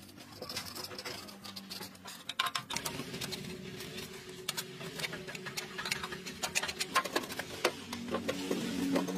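Irregular metal clicks, knocks and scraping as the rusty sheet-metal hopper of a powder grinding mill is handled and its throat scraped clean by hand.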